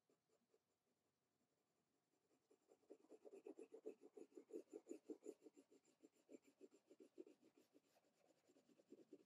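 Pencil shading on drawing paper: faint, quick, even strokes, several a second, starting about two and a half seconds in.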